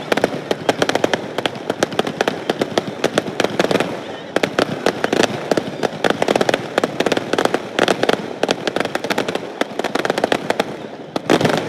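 Fireworks show exploding in a continuous rapid crackle of many overlapping pops and bangs, easing briefly about four seconds in.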